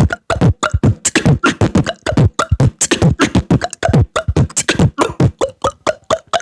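Human beatboxing: a fast run of mouth-made percussion, with deep kick-drum thumps and sharp snare and hi-hat sounds. Lighter, plop-like water-drop sounds come in near the start and the end.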